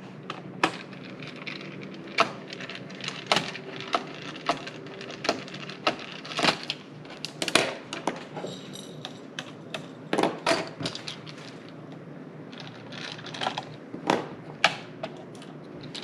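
Small screwdriver clicking and tapping on a laptop's plastic bottom case as screws are backed out under the battery bay, making irregular light clicks throughout.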